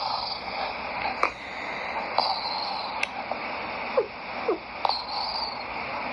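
A cat snoring as a steady hissing breath, with a few faint clicks and two short falling squeaks about four seconds in.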